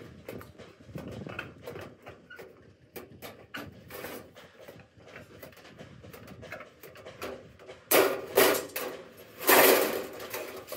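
Scattered knocks and clicks of tools and parts being handled during truck repair work, with two louder rasping noises near the end.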